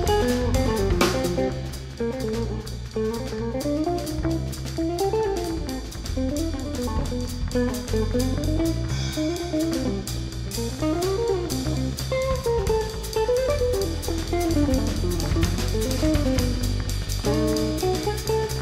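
Instrumental background music: a melody that rises and falls over bass notes and a steady beat.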